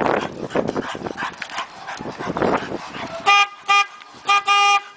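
A pit bull-type dog breathing hard and noisily as it strains to pull a car on a rope. About three seconds in, a car horn honks three times, the last honk the longest.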